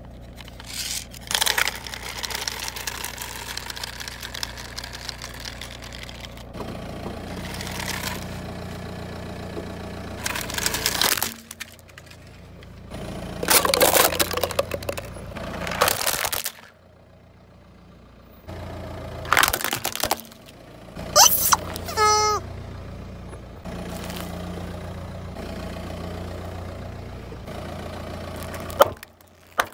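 A car's engine running low while its tyre rolls slowly over objects on asphalt, with loud crackling as plastic cups are crushed under the tyre around the middle. There are more short crackles and pops a few seconds later and one sharp crack near the end.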